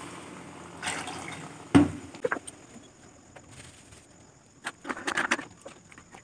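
Water pouring from a jug and a bowl into a pan of sugar for syrup. A sharp knock comes about two seconds in. Later a few light clinks and scrapes of a plastic spoon stirring the sugar water in the pan.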